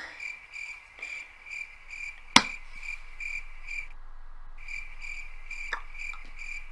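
Cricket chirping sound effect: a steady run of short high chirps, about three a second, with a brief break just past the middle, standing in for a blank, lost-for-words moment. A single sharp click about two and a half seconds in is the loudest sound.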